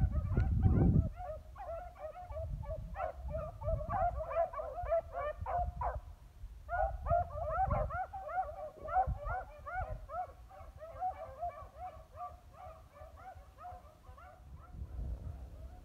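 A pack of beagles giving tongue as they work a scent line, with a rapid run of short, overlapping yelping bays that breaks off briefly midway and fades near the end. A loud low rumble on the microphone covers the first second.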